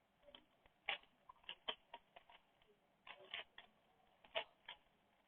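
Rubik's Cube layers being turned quickly by hand: faint, irregular plastic clicks and snaps, a few close together, as a timed solve gets under way.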